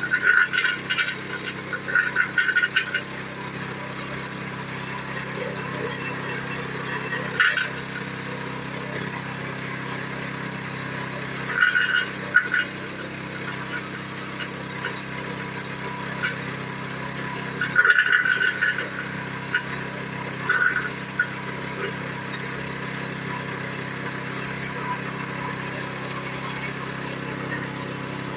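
Fruit-pulping machine running steadily while grinding brick to scour its insides clean, with short louder bursts of grinding several times as brick is crushed.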